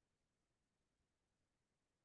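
Near silence: digital quiet with only a faint noise floor.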